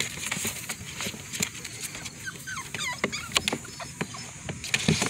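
Seven-week-old American Bully puppy giving a few short, high whimpers about two to three seconds in, over scattered rustling and handling noises in the grass.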